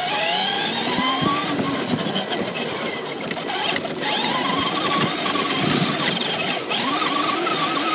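Traxxas radio-controlled car's motor whining as it drives, its pitch rising and falling with the throttle, heard up close from on board over a rough rushing noise of tyres on the ground.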